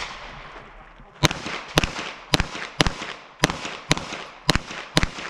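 Gunshots from a competition pistol or pistol-caliber carbine: eight shots in a steady string about half a second apart, beginning about a second in, each with a short echo.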